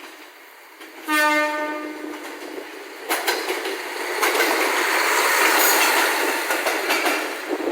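A train sounds one horn note for about a second and a half, then passes close by with a loud, building rush of wheels and air.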